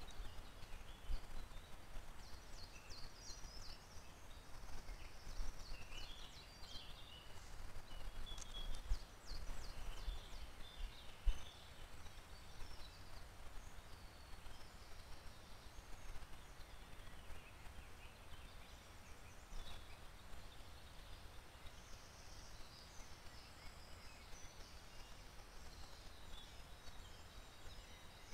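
Wild songbirds chirping and singing in short high phrases, busiest in the first ten seconds and again near the end, over a faint steady low rumble, with one sharp click about eleven seconds in.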